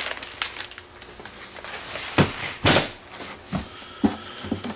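Cardboard box and plastic packaging being handled: rustling and crinkling, with several dull knocks against the box, the loudest a little over two seconds in and again near the end.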